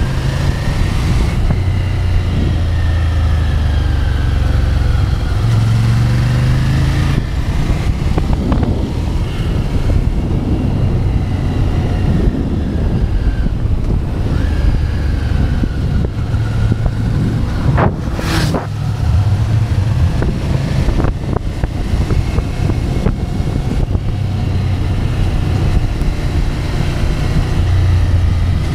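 Ducati Scrambler's L-twin engine running under way, its note rising and falling with the throttle, with wind rushing over the microphone. A sharp click sounds about two-thirds of the way through.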